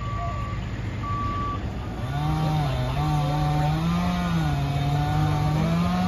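Diesel engine of a John Deere wheeled excavator running, with two back-up alarm beeps at the start. About two seconds in a louder engine note comes up and rises and falls in pitch as the machine works.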